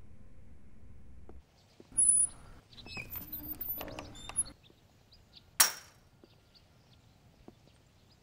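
A low steady hum that cuts off after a second and a half, then a short loud burst and a spell of clattering knocks, then a single sharp crack a little past halfway.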